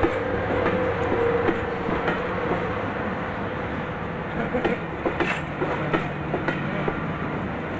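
A Class 55 Deltic locomotive's twin Napier Deltic two-stroke diesels working as the train pulls away, the engine note fading after the first second or two. Over this, the wheels of the passing coaches click over rail joints and pointwork, more busily in the second half.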